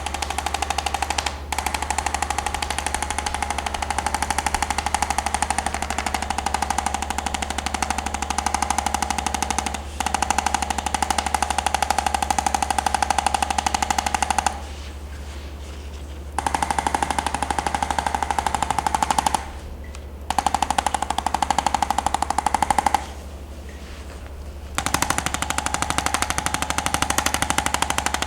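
Handheld electric percussion device running with a fast, even hammering and a steady buzzing pitch, applied to the ankle to restore mobility. It stops briefly three times, about 15, 19 and 23 seconds in.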